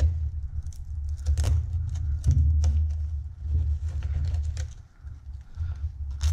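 Velcro handlebar straps being wrapped and pressed shut around a handlebar: a few short crackling rips with fabric rustling, over a low rumble of handling.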